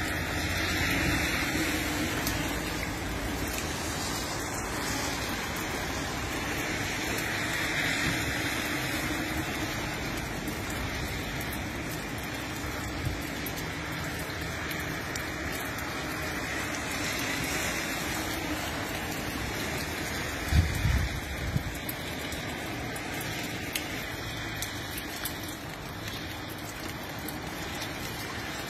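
Rain falling in a steady hiss, with a short cluster of low thumps about two-thirds of the way through.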